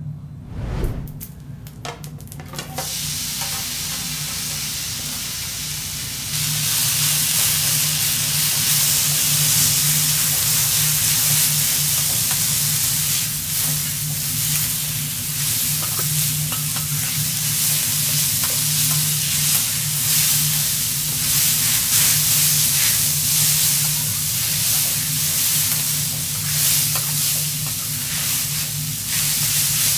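Vegetable fried rice sizzling on a teppanyaki iron griddle, with a metal spatula scraping and tapping as it is stirred. A few clicks at first, then the sizzle swells loudly about six seconds in and carries on, over a steady low hum.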